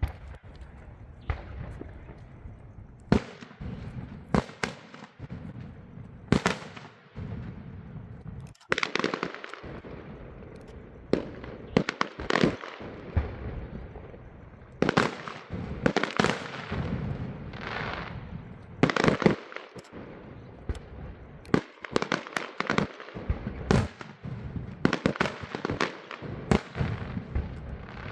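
Aerial fireworks going off in irregular succession: sharp reports, several of them trailing into dense crackling, over a low steady rumble.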